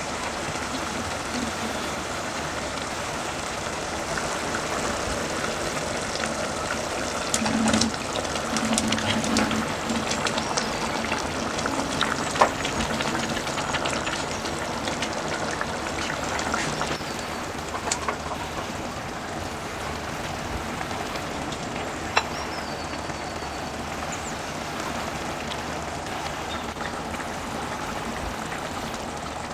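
Food sizzling in a hot pan, a steady crackling hiss with scattered sharp pops, one loud pop about twelve seconds in.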